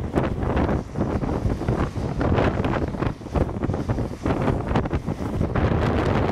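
Strong, gusty wind buffeting a microphone that is travelling at speed, over a low road rumble.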